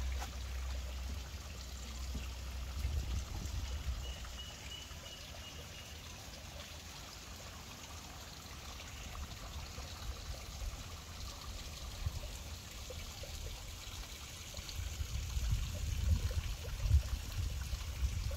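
Water trickling steadily, with a low rumble underneath that is strongest near the start and the end.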